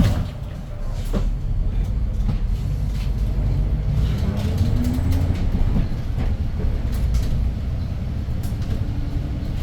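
Cabin rumble of a Hyundai New Super Aerocity city bus under way, its C6AF CNG engine running. The engine note climbs steadily for about two seconds in the middle as the bus gathers speed, then falls away, with a few light rattles.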